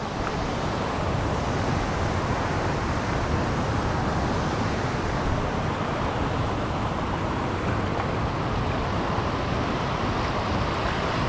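Steady, even rushing noise with no distinct events, strongest in the low end.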